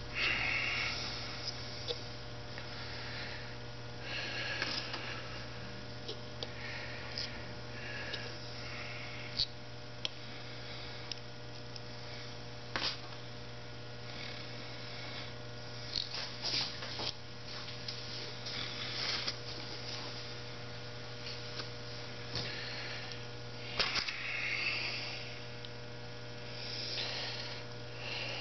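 Steady electrical mains hum, with scattered small clicks and brief rustles of hands handling small bolts and a hex key on an aluminium motorcycle carburettor held in a vise.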